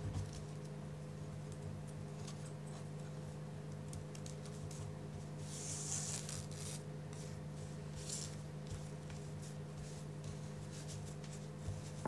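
Strips of scrapbook paper rustling and scraping faintly against each other and the tabletop as they are lifted and threaded through a woven pattern, loudest about six seconds in. A steady low hum runs underneath.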